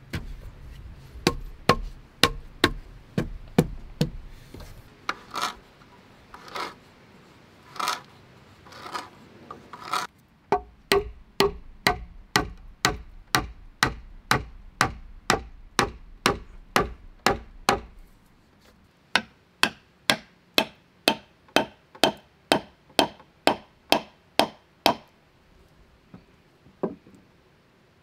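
Hand tool knocking on wood in steady runs of sharp blows, about two a second, as poles and logs are worked into a log hut wall. In one stretch the blows give way to slower scraping strokes on the wood, about one a second.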